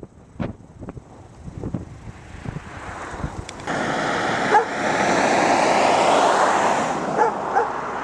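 Wind buffeting the microphone in gusts, then a car passing close by on the road: its tyre and engine noise rises suddenly about three and a half seconds in and fades near the end. A few short pitched calls sound over it.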